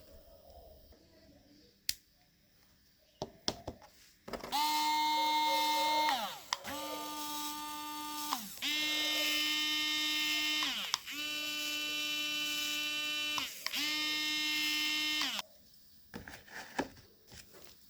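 Small battery-powered DC fan motor whining, switched on and off five times in quick succession. Each run lasts about two seconds, and the pitch sags as the motor spins down. Clicks and knocks from handling come before it.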